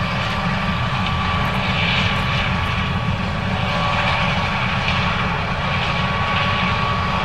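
John Deere 9610 combine running steadily while harvesting corn: a steady engine and machinery drone with a thin, constant whine.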